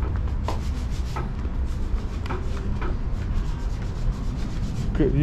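Footsteps on a wooden ship's deck, about one step every half second, over a steady low rumble.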